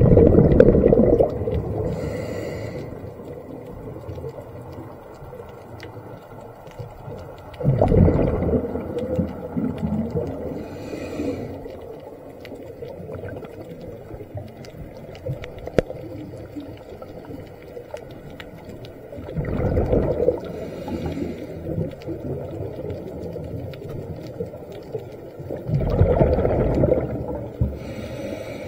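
Scuba diver breathing through a regulator underwater: four loud, rumbling bursts of exhaled bubbles, one every six to eight seconds, each followed by a fainter hissing inhalation through the demand valve.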